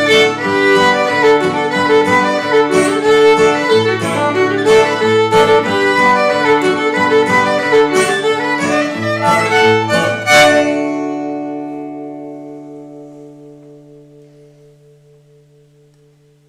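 Violin playing a lively fiddle tune over a lower accompaniment, ending about ten seconds in; the final chord then rings on and slowly fades away.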